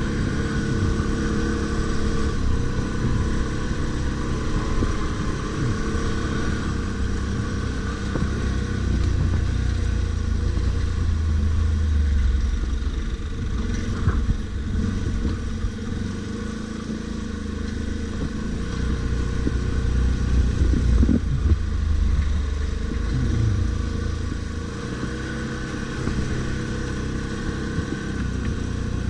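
ATV engine running steadily off-road, its note rising and falling a little with throttle, over a strong low rumble. There is a brief sharp knock near the middle.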